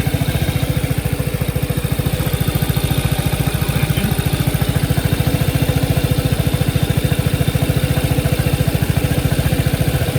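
2021 Vespa GTS 300 HPE's single-cylinder engine idling steadily, hot after a motorway run, with a fast even pulse. A light metallic rattle comes from the rear of the engine compartment just above the transmission unit; the owner is unsure whether it is normal.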